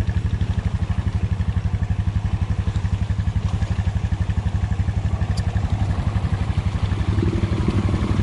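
ATV engine running at low, steady revs with an even rapid pulse as the quad pulls through soft, soupy clay mud, picking up a little about seven seconds in.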